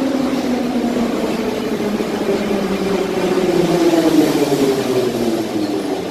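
Metro train pulling into a station platform, its traction motors whining with a pitch that falls steadily as it brakes, over the noise of wheels on rail.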